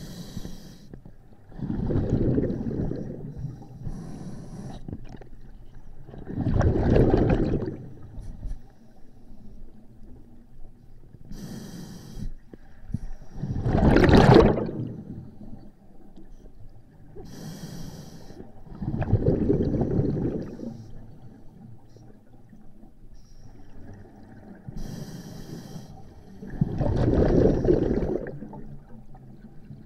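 A scuba diver breathing through a regulator underwater, about five breaths. Each is a short high hiss of inhaling through the demand valve, followed a couple of seconds later by a louder rush of exhaled bubbles.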